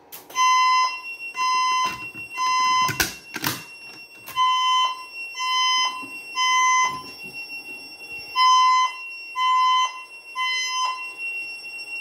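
Fire alarm voice-evacuation speaker sounding the temporal-three evacuation tone: three half-second beeps, then a pause, repeated three times. A steady faint high tone runs underneath, and two knocks come about three seconds in.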